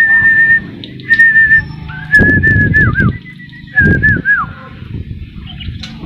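A person whistling four held notes at one steady pitch, the first two short, the last two longer and each ending in a quick downward dip.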